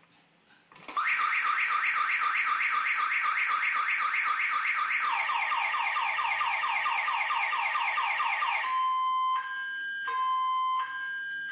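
Car alarm going off about a second in: a fast warbling chirp that changes to a different, lower-reaching warble about halfway through, then to two tones alternating in long beeps near the end.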